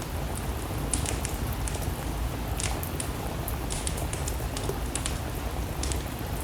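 Steady rain mixed with a wood fire crackling in a fireplace: a constant hiss over a low rumble, with scattered sharp pops and snaps.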